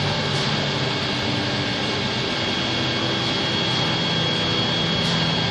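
Steady machine noise: a continuous hiss with a thin, steady high whine and a low hum, unchanging throughout.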